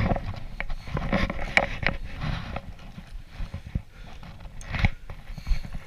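Double-bladed kayak paddle strokes: the blades splashing and dripping in the water, with irregular knocks scattered through the strokes, the loudest a little before the end.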